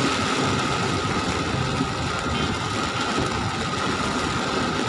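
Heavy rain falling on a moving car and its tyres running through water on a flooded road, heard from inside the cabin as a steady, even rush, with the engine running beneath it.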